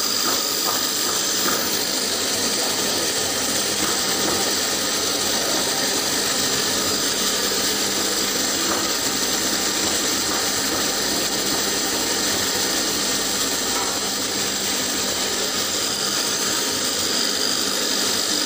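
Electric-motor-driven floating fish feed extruder running steadily, a constant mechanical noise with a steady high whine.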